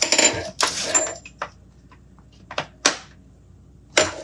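Chrome steel sockets clinking against each other and the plastic tray of a socket set as they are picked through and pulled out: a scatter of sharp metallic clicks, a few with a brief high ring, busiest at the start and again just before the end.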